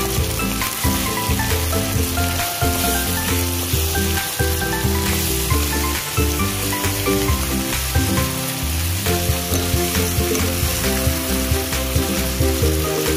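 Chicken pieces and onions sizzling in a hot pan, stirred and turned with a wooden spatula. Background music plays underneath.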